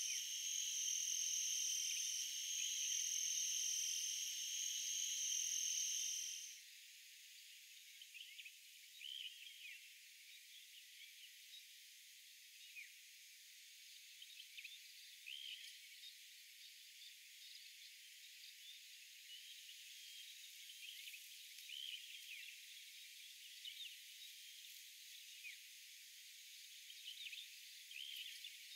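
A steady, high-pitched, pulsing insect trill that cuts off abruptly about six seconds in. After it comes a faint outdoor background with scattered short chirps.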